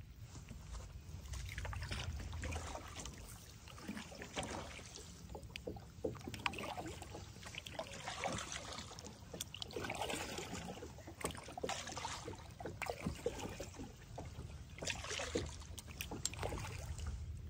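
Kayak paddle strokes dipping and pulling through lake water, with drips and small splashes against the hull, swelling and easing with each stroke.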